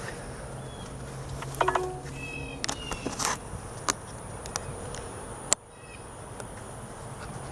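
Insects droning steadily at a high pitch outdoors, with a few short bird chirps and scattered light clicks.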